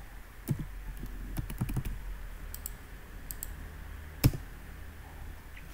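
Computer keyboard typing: a scatter of key clicks, then one sharp, louder click a little past four seconds in.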